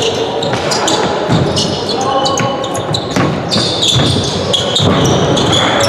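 Indoor ball game in a sports hall: repeated ball thuds and bounces on the court floor, with players' and spectators' voices echoing in the hall.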